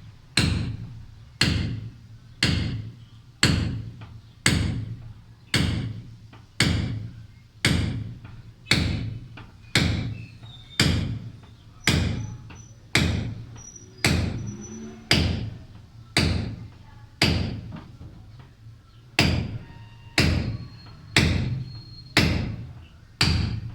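Hammer striking a steel chisel to chip concrete off a slab corner: steady blows about once a second, each with a short metallic ring, pausing briefly once about three-quarters of the way through.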